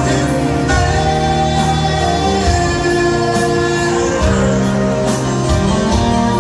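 Live concert music: a band with sustained chords, a lead voice singing and a steady drum beat, played loud through a stadium sound system.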